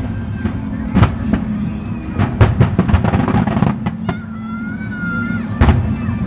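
Fireworks going off in a rapid series of bangs, with a burst of crackling about two and a half seconds in. A high, wavering whistle is heard about four seconds in and lasts a little over a second.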